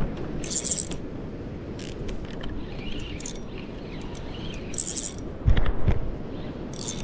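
Spinning fishing reel being cranked by hand in short spurts, its gears and bail whirring and clicking. Low knocks from handling the rod come about five and a half seconds in, over a low rumble.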